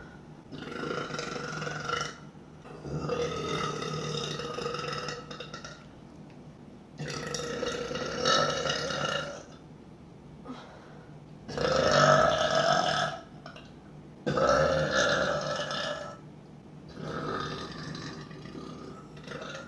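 A woman belching six long, loud, drawn-out burps in a row, each lasting one and a half to three seconds, with short pauses between them.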